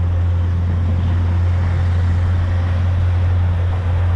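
Motorboat engine running steadily, a constant low drone, with the rush of water and wind over it.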